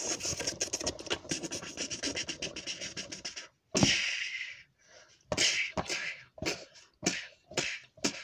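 Mouth-made fight sound effects during a puppet battle. A rapid, scratchy flurry of breathy clicks and hisses runs for about three and a half seconds. After a short break it turns into separate hissing bursts about twice a second, like voiced punches.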